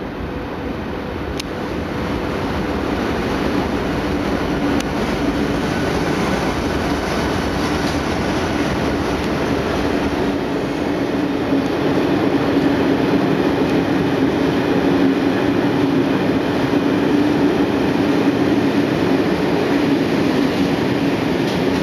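Freight train passing through a station: an SBB Cargo electric locomotive followed by a long run of loaded hopper wagons, the noise of the wheels on the rails growing louder over the first dozen seconds and then holding steady, with a steady hum underneath.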